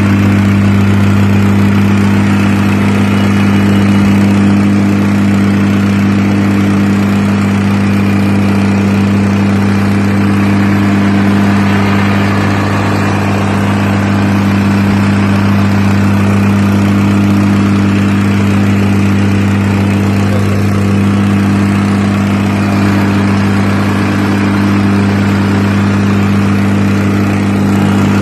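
Gas-engined plate compactor from Harbor Freight (Central Machinery, with a Predator engine) running at a steady, unchanging pitch. It keeps a loud, even engine drone throughout.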